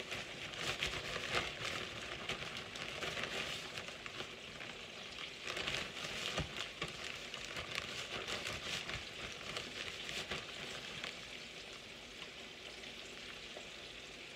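Flour-coated chicken deep-frying in a pot of hot oil: steady sizzling with scattered crackles, easing a little in the last few seconds.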